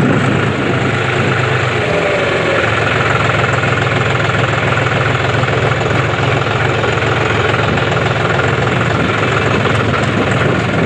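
John Deere tractor's diesel engine running steadily as the tractor drives along the road, heard from on board.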